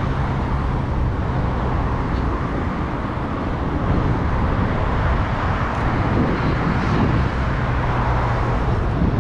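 Steady city road traffic: motor vehicles running past on a busy avenue, with a low engine hum that comes and goes.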